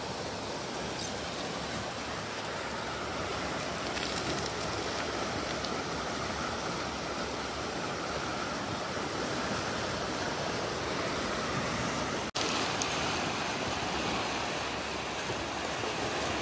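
Swollen, muddy Gola river in flood, rushing steadily past an eroding bank, with a momentary break about twelve seconds in.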